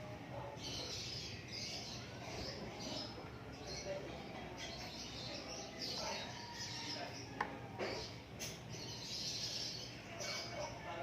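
Birds chirping in a run of short, high twittering calls over a steady low hum, with a single sharp click about seven and a half seconds in.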